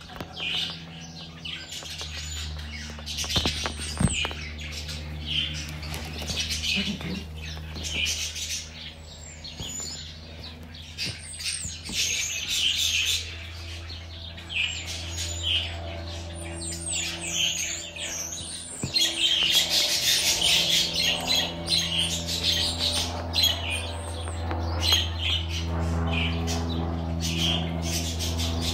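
A flock of budgerigars chattering: a busy, unbroken stream of rapid high chirps and squawks, getting denser and louder in the second half, over a steady low hum.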